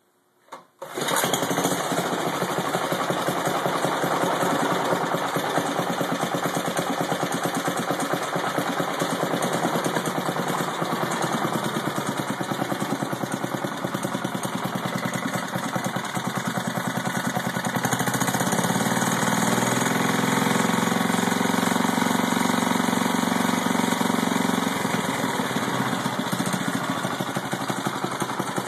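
Freshly rebuilt Clinton 494 cast-iron small engine pull-started with its recoil starter, catching on the first pull about a second in. It then runs steadily, a little louder and fuller for several seconds past the middle.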